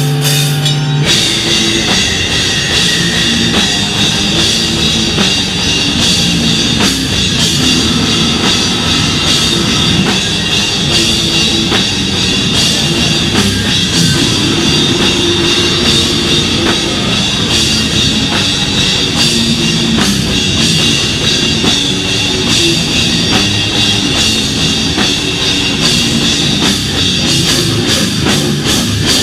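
Live slam/beatdown metal band playing loud: heavily distorted electric guitars over a drum kit with cymbals. A held guitar chord rings for about the first second before the full band comes in.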